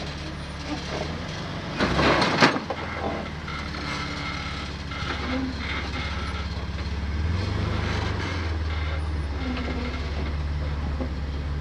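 Jeep Wrangler TJ engine running low and slow as the Jeep crawls down a rock ledge, with a loud, rough burst of noise about two seconds in. The engine note rises a little around seven seconds in as throttle is added, then settles back.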